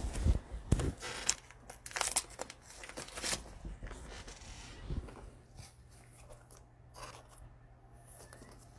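Crinkling and tearing of a trading card pack's foil wrapper as it is opened: a quick run of crackles in the first few seconds, then sparser rustles.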